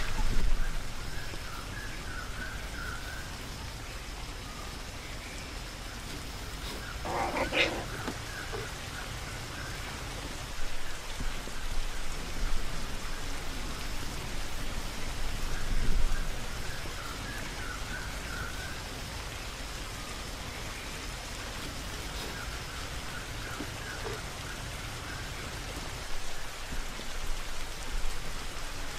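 Steady outdoor hiss with scattered faint chirps and a thin high tone. There is one brief call about seven and a half seconds in, and a few knocks near the start, midway and near the end.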